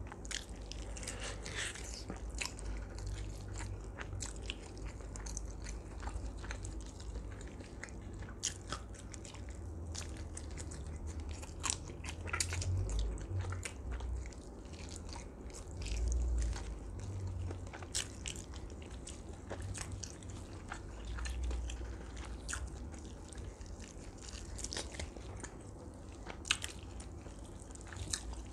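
Close-miked chewing and biting of roasted duck, with scattered sharp clicks and crunches and a few dull low thumps, as the meat is pulled apart by gloved hands.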